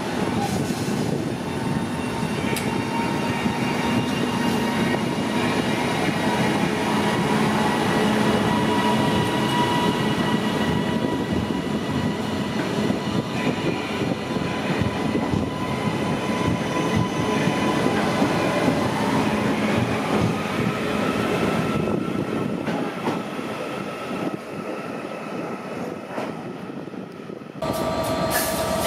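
Northern Class 331 Civity electric multiple unit moving past at close range: the noise of its wheels on the rails, with steady whining tones from its electric drive, easing off over the last few seconds.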